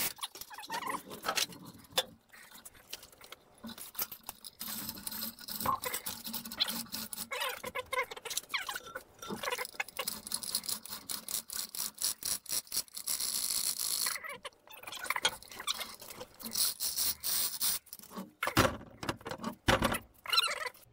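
Manual chain hoist working under the load of a cast-iron mill table hanging in a lifting strap: the hand chain runs through the hoist in a fast rattle of clicks, with clinks of loose chain, pausing briefly a couple of times.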